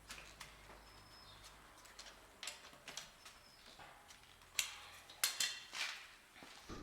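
Scattered light metallic clicks and knocks from tools and wheel hardware being handled during a wheel change, with a few louder ones in a cluster about four and a half to six seconds in.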